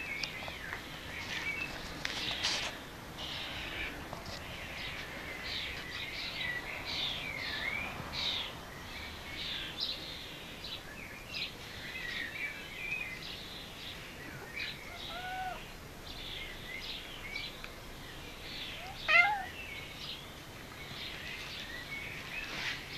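Garden birds chirping almost continuously with short high notes. A cat meows over them, a short call about two-thirds of the way in and a louder one about four seconds before the end.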